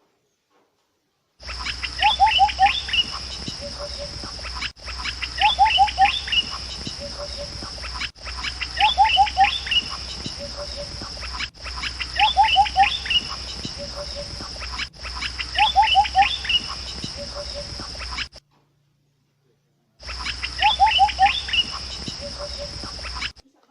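Bird chirps, quick runs of rapid notes over a steady high insect-like drone, with the same few-second passage repeated about six times with abrupt cuts and two short dead-silent gaps: a looped recording.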